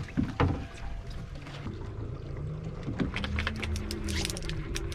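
Boat-on-the-water ambience: water lapping against a fishing boat's hull under a low steady hum, with scattered light clicks and knocks.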